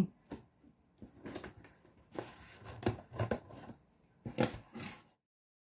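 Packing tape being torn off a cardboard box as its flaps are pulled open, in several short noisy bursts of ripping and cardboard handling. The sound cuts off suddenly near the end.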